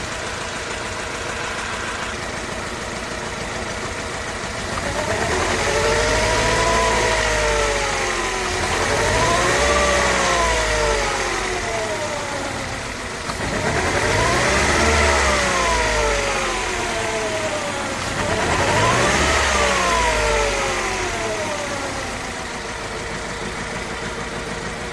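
Mercedes-Benz C200's four-cylinder petrol engine idling, then revved four times, each rev rising and falling in pitch over two to three seconds. The engine has a misfire and backfire fault that the owner says makes it sound as if it runs on only two or three cylinders.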